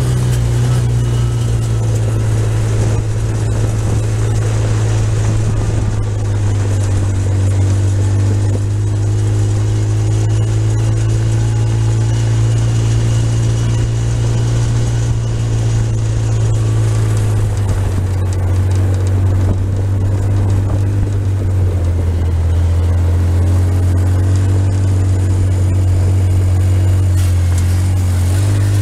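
Engine of an off-road side-by-side running steadily while driving along a dirt road, heard from on board. The engine note drops lower about two-thirds of the way through and rises again near the end.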